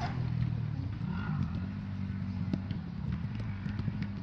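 A steady low hum, with a sharp knock of a football being kicked about two and a half seconds in and faint distant shouts of players.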